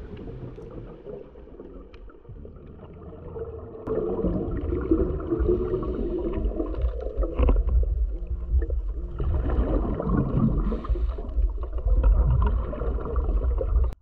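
Muffled underwater noise through a camera housing: scuba exhaust bubbles gurgling and rumbling, louder and more agitated from about four seconds in.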